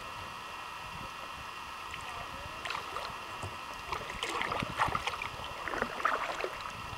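Kayak paddle strokes splashing, with water dripping and lapping against the hull over a steady background hiss. The splashing comes in irregularly and grows busier from about halfway through.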